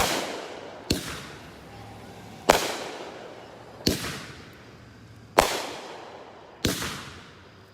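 Brothers "Sweet Spot" fireworks cake firing: six sharp bangs about every second and a half, each trailing off in a fading echo.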